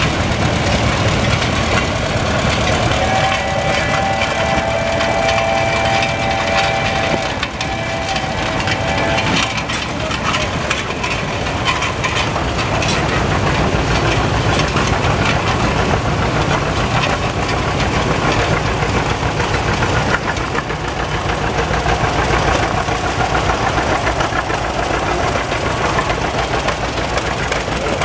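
Antique farm tractor engines running at low speed as tractors, among them a red Farmall, drive slowly past. A steady high tone holds from about three to nine seconds in.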